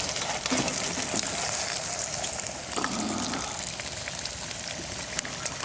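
Steaks sizzling on a wire grill over the wood fire of a brick rocket stove: a steady hiss with fine crackles.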